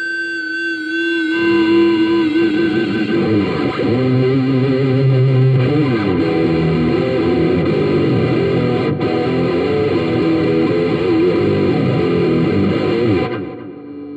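Electric guitar played through a Marshall CODE50 modelling amp with distortion and effects: a held note for the first second or so, then a run of notes and chords whose pitches bend and waver, changing to a different sustained tone near the end.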